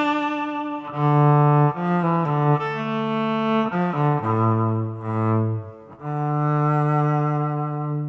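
Yamaha SVC-210 silent electric cello bowed through its onboard reverb effect: a slow melody of sustained notes that dips into the low register about four seconds in, then settles on one long held note near the end.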